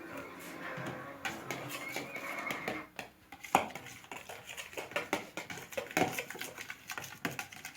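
Toy dishes and utensils being handled, clattering in a string of irregular light knocks and clicks, the sharpest about three and a half seconds in.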